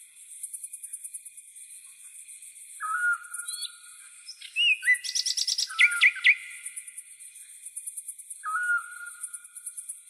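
Night nature soundscape: a steady high insect trill runs throughout, and a short whistled call sounds twice, a few seconds apart. About halfway through, a bird breaks into a brief burst of rapid chirps and sharp whistles, the loudest part.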